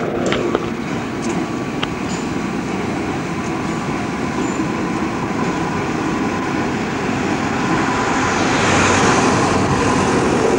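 Shunting locomotive pulling a second, dead locomotive along street track, with street traffic around it. A car passes close near the end, the loudest moment.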